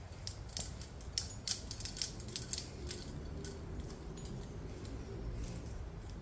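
Metal climbing hardware clinking: a quick run of light metallic clicks and jingles in the first three seconds, then a few scattered ones, as the rope is handled on the gear.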